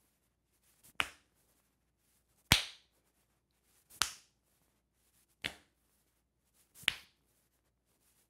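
Open palms slapping a person's own body at the shoulder and ribs as the arms swing around the torso: five sharp slaps about one and a half seconds apart.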